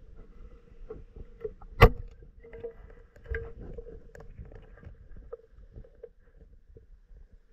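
Muffled underwater sound in a river: low rumbling with scattered clicks and taps, a faint steady hum, and one sharp knock about two seconds in.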